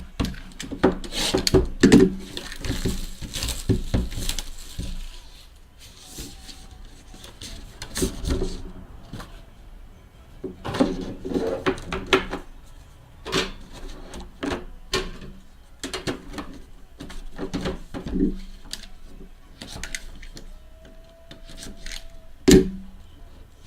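Rustling, scraping and irregular knocks as a sealed trading-card box is opened and its packaging and contents are handled, with one louder knock near the end.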